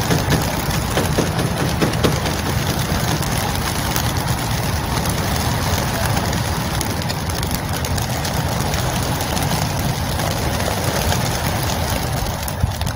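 Mass release of racing pigeons: the dense clatter of hundreds of wings beating as the birds pour out of the transport truck's crates, over a steady low engine rumble. The wing noise falls away right at the end.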